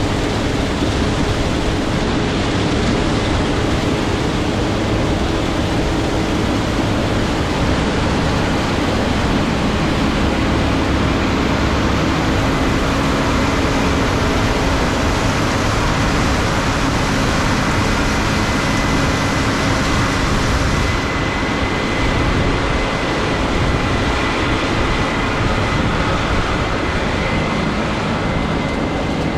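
Case IH 7230 Axial-Flow combine running steadily up close while harvesting soybeans with a MacDon FD75 FlexDraper header: a constant engine and threshing drone, with a faint high whine joining about halfway through.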